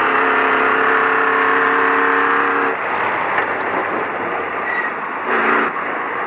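Vehicle horn honking: one long steady blast that cuts off about three seconds in, then a short blast near the end, over the constant engine and road noise of a racing off-road truck.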